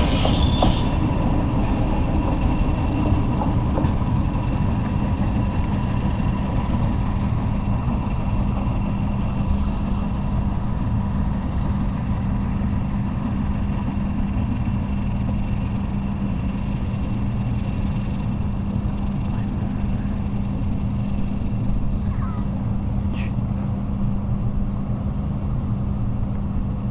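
Steady low rumble with a constant low hum, like a running engine heard at an even level.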